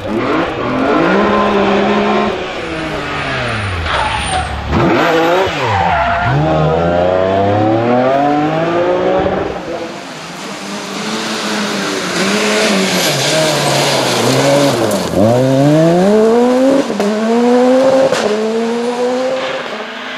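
Rally car engines driven hard, revs repeatedly climbing and falling sharply through gearshifts and lifts, with tyre squeal. The sound changes abruptly about halfway through, as if to another car.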